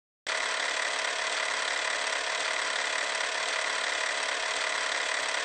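Intro sound effect for an old-film-style title card: a steady, dense mechanical hiss with faint irregular low crackles, starting abruptly just after the start.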